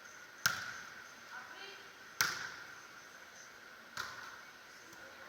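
A beach volleyball struck by hand three times, a little under two seconds apart: sharp slaps of hands and forearms on the ball during a rally.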